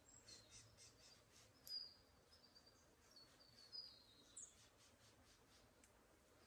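Faint wild birds calling: several short, high chirps, the clearest about two seconds in and again around four seconds, over a faint rapid high chirping.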